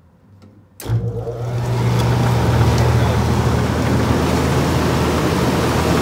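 A click about a second in, then the furnace's belt-driven blower, run by a half-horsepower Century electric motor, starts up. It builds over about a second and then runs steadily with a low hum and a rush of air.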